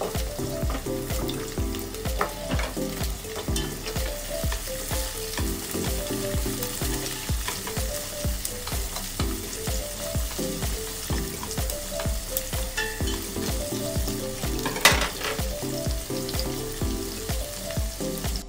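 Onion, garlic and carrot slices sizzling as they sauté in a pot and are stirred with chopsticks, under background music with a steady beat. One sharp clatter stands out about 15 seconds in.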